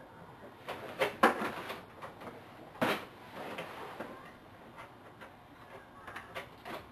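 Plastic toys knocked and handled by a child: a cluster of clattering knocks about a second in, then a single sharp knock near three seconds, with fainter small rustles in between.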